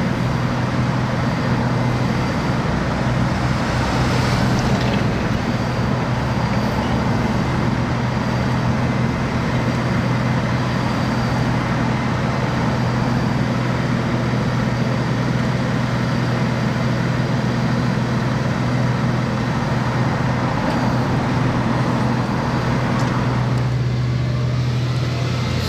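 Steady, loud drone of heavy diesel road-works machinery, a Volvo L60G wheel loader working beside an asphalt milling machine, with a constant low engine hum and a car passing once.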